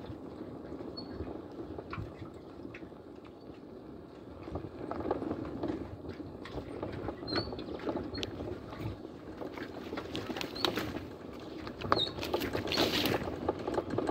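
Vehicle moving along a rough dirt track: a steady low rumble of tyres and running gear with scattered knocks and rattles. It gets louder about four to five seconds in and again near the end, with a brief hiss.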